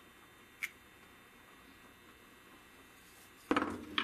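Handling noise of a turned wooden piece being lifted away from the lathe: a single light click about half a second in, then a short clatter of knocks about three and a half seconds in, ending in one more click.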